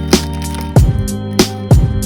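Background music with a beat: deep kick drums that drop in pitch, over sustained chords.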